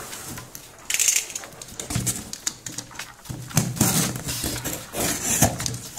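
Cardboard shipping box handled and its packing tape slit with a box cutter: irregular scraping, rustling and tearing of tape and cardboard with sharp clicks, the busiest bursts about a second in and again over the second half.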